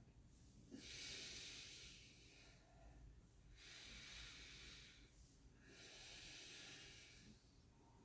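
A person's slow, faint breathing: three long breaths, each about a second and a half, with short pauses between them.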